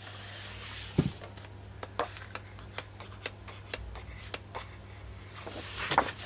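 Sheets of a scrapbook paper pad being turned and handled on a table: a soft paper rustle, a light thump about a second in, scattered small taps and crinkles, and a louder rustle near the end, over a faint steady low hum.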